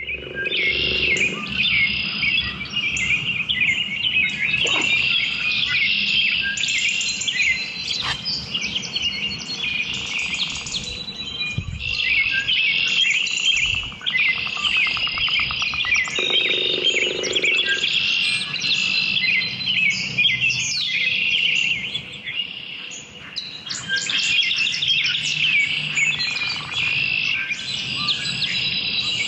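Dawn chorus of many songbirds singing and calling at once, a dense, continuous mix of chirps and trills. A lower-pitched sound comes in briefly twice.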